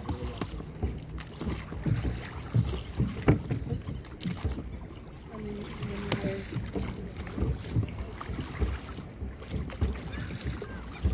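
Rowing a wooden Viking longship replica: oars sweeping through the water and working in their wooden oar ports, with irregular sharp knocks (the loudest about three and six seconds in) over wind rumbling on the microphone.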